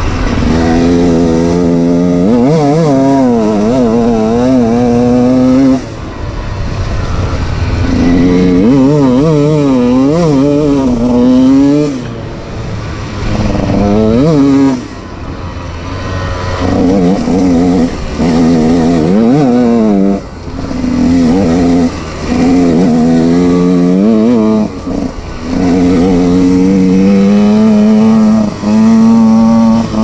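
KTM 125 EXC's single-cylinder two-stroke engine, breathing through a DOMA Sixdays exhaust, revving hard as the bike is ridden fast, its pitch climbing and falling again and again. The throttle is shut off sharply several times between pulls, and the engine has just finished running in on a new piston.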